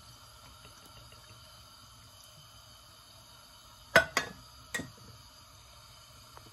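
Hard clinks of a cooking-oil bottle being set down after pouring: a sharp knock with a brief ring about four seconds in, a smaller one right after, and a third under a second later. A faint steady hum runs underneath.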